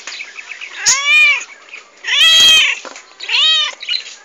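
Black-and-white domestic cat meowing three times, about a second apart, each meow rising and then falling in pitch.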